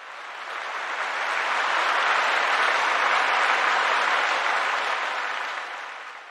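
Audience applause, a dense patter of many hands that fades in over about two seconds and fades out near the end.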